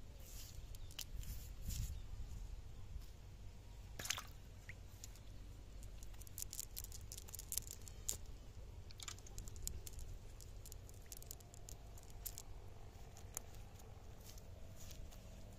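Faint wet rustling and squishing, with scattered small crackles and clicks, as a fishing net is handled over muddy, weedy ground while fish are picked out of it. The crackles come thickest a little past the middle.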